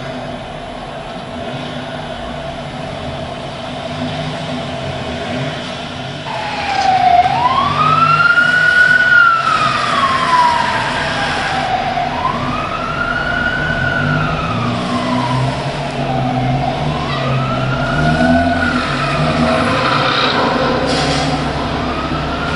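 Emergency vehicle siren wailing, starting about six seconds in and sweeping slowly up and back down in pitch about once every five seconds, loudest on its first sweeps. A low, steady vehicle-engine rumble runs underneath.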